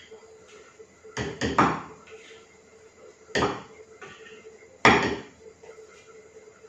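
Spatula and Thermomix steel mixing bowl knocking, four sharp knocks over several seconds as the last of the whipped egg whites is knocked out of the tilted bowl.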